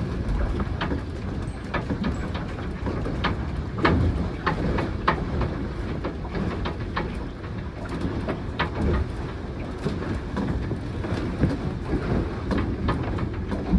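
A sailboat heeled over in strong wind: wind buffeting the microphone, with water rushing and irregularly slapping and splashing against the hull.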